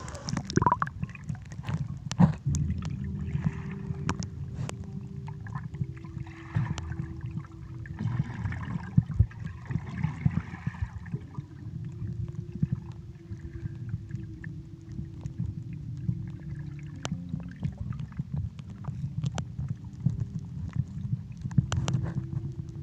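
Muffled underwater sound of a swimming pool picked up by a submerged camera: a constant low rumble with many small sharp clicks and bubbling, and a faint steady hum behind it.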